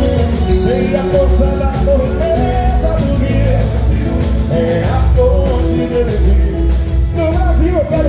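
Live band playing a boi-bumbá toada, with heavy bass and a voice singing a wavering melody over it.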